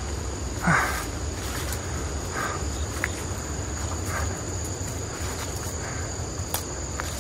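Steady high-pitched insect drone from the surrounding brush, with soft footsteps on a grassy dirt path every second or two and a low rumble underneath.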